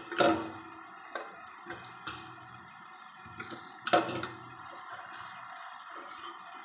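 Metal utensil knocking against a steel cooking pot of vegetables on a gas stove: two sharp ringing clanks, near the start and about four seconds in, with a few lighter taps between, over a steady hiss.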